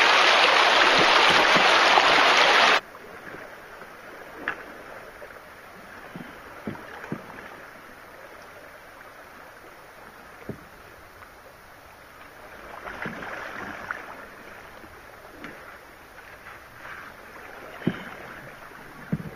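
Loud, steady rush of water over a shallow rocky riffle, which cuts off suddenly about three seconds in. What follows is a much quieter calm river with faint water sounds and occasional light knocks as a canoe is poled.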